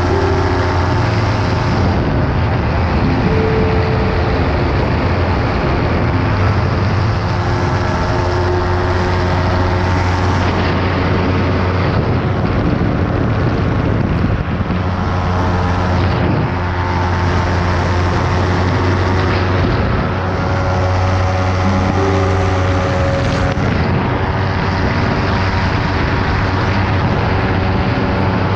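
Engine and pusher propeller of a weight-shift microlight trike running steadily in flight, a constant drone, with wind rushing over the open cockpit.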